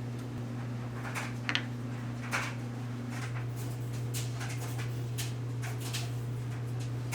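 Short, irregular scratches, rubs and light taps of hand-working leather and tools, over a steady low hum.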